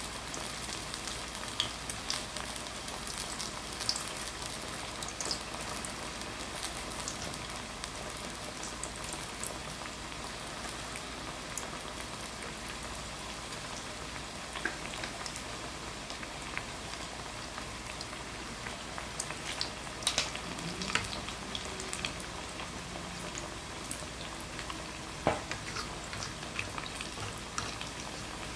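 Battered sweet potato slices deep-frying in hot oil in a pan: a steady crackling sizzle with a few sharper clicks about 20 and 25 seconds in.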